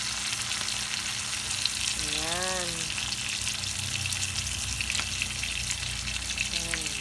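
Chicken pieces frying in olive oil in a pan, sizzling and crackling steadily as honey cooks in with them.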